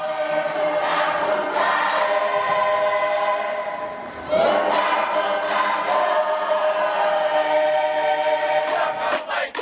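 A choir singing long held notes in harmony, with a new phrase starting about four seconds in.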